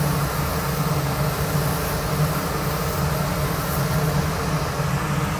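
Steady mechanical hum with an even hiss, from a kitchen fan running.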